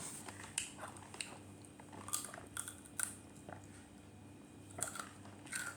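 Close-up chewing of a crunchy snack: scattered crisp crunches, one every half second or so, between quieter chewing.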